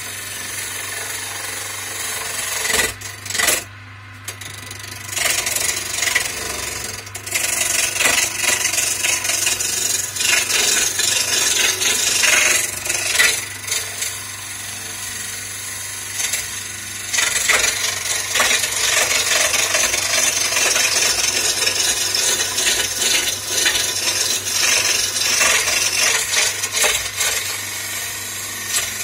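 Hand-held turning gouge cutting a spinning wooden spindle on a small wood lathe, a continuous scraping hiss of the cut over the lathe motor's steady hum. The cut eases off briefly about four seconds in and again for a few seconds mid-way as the tool is lifted.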